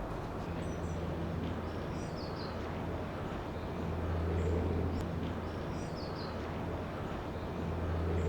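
Small birds chirping in short repeated phrases over a steady low rumble, with the rumble swelling twice.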